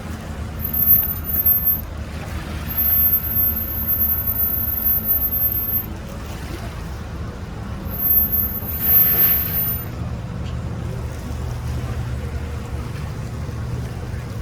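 An engine running steadily at low speed, with a deep hum that changes note about ten seconds in.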